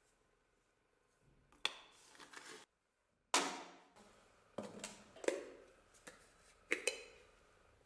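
A series of about six sharp knocks and clunks as a large plastic bottle and a plastic salt jar are handled and set down on a wooden workbench, the loudest about three seconds in.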